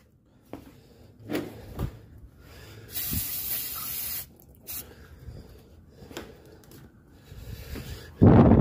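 An aerosol can sprayed once in a steady hiss lasting a bit over a second, after a few light knocks. Near the end there is a short, loud rustle, the loudest sound here.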